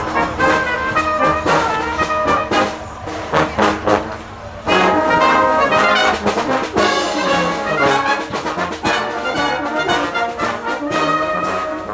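Brass band playing a rock arrangement, with sustained brass chords over sharp percussion hits. After a thinner, quieter passage, the full band comes back in loudly about five seconds in.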